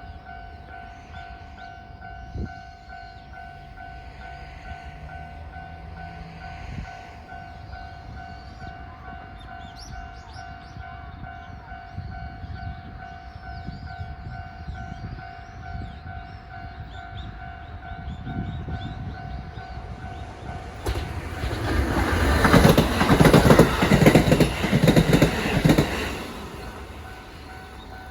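Railway level-crossing warning bell ringing steadily in rapid pulses while a Kintetsu electric train approaches and runs through the crossing, loudest for about five seconds near the end, its wheels clattering over the rail joints. The bell stops just before the end.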